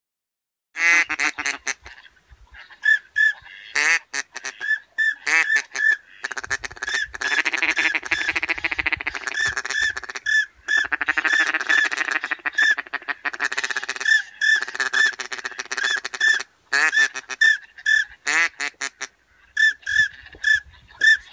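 Ducks quacking loudly, in rapid runs of calls broken by short pauses, starting just under a second in.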